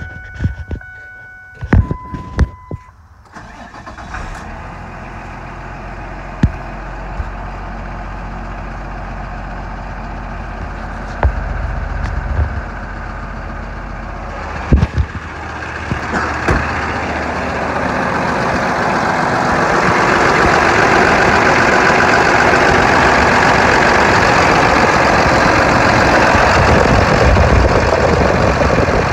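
A 2009 Ford F650 truck's engine cranks and catches about three seconds in, after a few seconds of steady dashboard warning tones and clicks, then settles into a steady idle. From about halfway through the idle grows louder and brighter, heard close up in the open engine bay.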